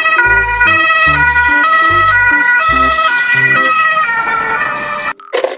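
Ambulance siren sounding a European two-tone hi-lo wail, alternating between two pitches about every half second. It cuts off abruptly about five seconds in.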